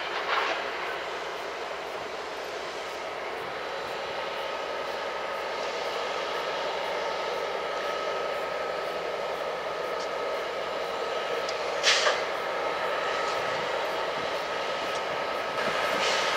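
Diesel-electric freight locomotives (an EMD SD70M-2, a GE ES44DC and an EMD SD70MAC) running past, a steady mechanical din with a steady high whine in it. Three brief sharp noises stand out: at the start, about twelve seconds in, and at the very end.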